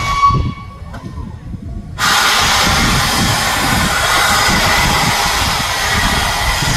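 Steam blowing off from the Flying Scotsman, an LNER A3 Pacific steam locomotive: after a low rumble, a loud steady hiss starts suddenly about two seconds in and keeps going.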